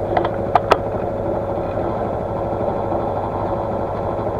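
Boat engine running steadily, a low hum with a faint steady tone over it, with two sharp clicks a little over half a second in.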